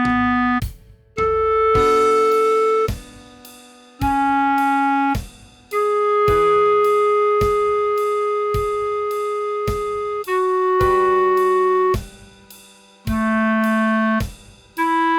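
Clarinet tone playing a slow melody of single held notes with short gaps between them, at half speed. Metronome clicks tick steadily about every 0.6 seconds underneath.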